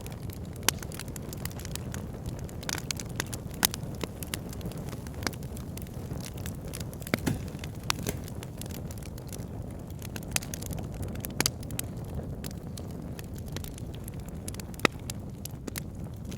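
Wood logs burning in a fireplace: irregular sharp crackles and pops over a steady low rumble of the flames.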